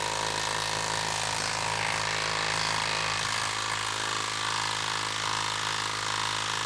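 Milwaukee M12 Stubby 1/2-inch cordless impact wrench hammering steadily as it drives a long lag screw into a wood round. The motor holds an even speed against the anvil blows without bogging down, on a 4 Ah battery.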